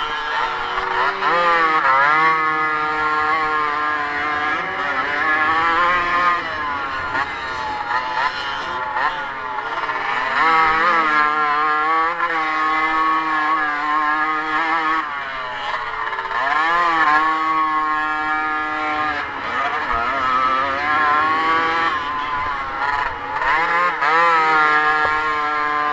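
Motocross motorcycle engine revving up and dropping back again and again as the bike accelerates, shifts and slows around a dirt track, heard close from the bike.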